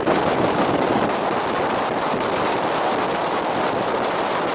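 Train running at speed, heard from an open door: a steady rush of wind over the microphone mixed with wheels rolling on the rails.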